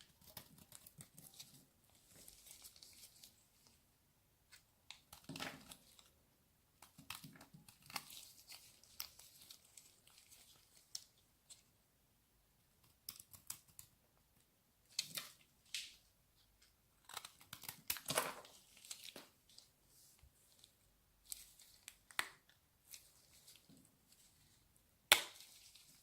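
Close-miked hand handling of ASMR trigger objects: irregular crinkling and scraping in bursts, with scattered sharp clicks and one louder click near the end.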